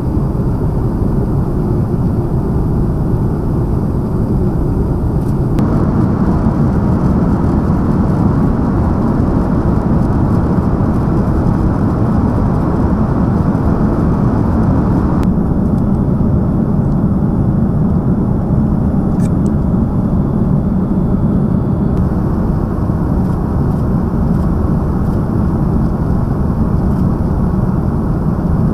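Steady in-flight rumble of jet engines and rushing air, heard from inside a KC-30A tanker aircraft. The tone shifts slightly at cuts about 6, 15 and 22 seconds in.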